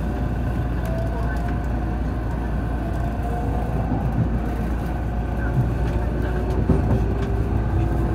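JR Central 313 series electric train running, heard from inside its front car: a steady low rumble with the traction motors' whine rising slowly in pitch as it picks up speed, and occasional clacks of the wheels over points.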